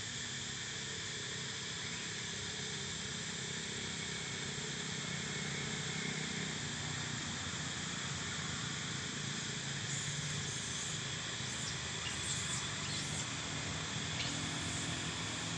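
Steady outdoor insect drone, with a constant hiss and a low rumble underneath. A few faint ticks come in during the second half.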